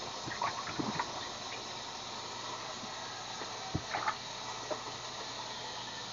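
Steady sizzle of onion, ginger and tomato sautéing in hot oil in a pan, with a few light knocks and handling sounds on top.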